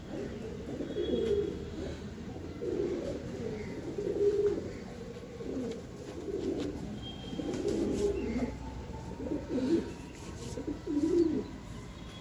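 Domestic pigeons cooing, overlapping low warbling coos coming in repeated bouts of about a second.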